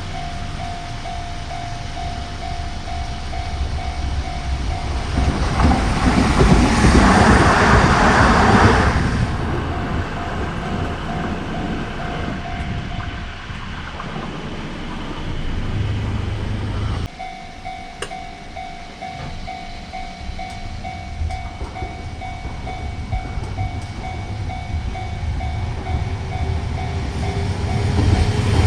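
Japanese railway level-crossing warning bell ringing its rapid repeated "kan-kan" alarm while a Hiroden Miyajima Line tram rumbles over the crossing about five to nine seconds in. The bell stops near the middle, and after an abrupt change a crossing bell is ringing again.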